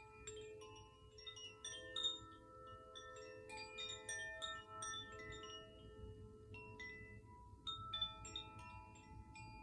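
Wind chimes ringing softly, with many irregular strikes whose bell-like tones overlap and ring on.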